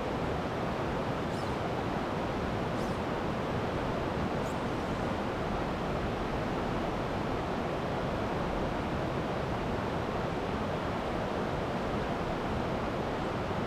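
Creek water rushing over rocks: a steady, even rush.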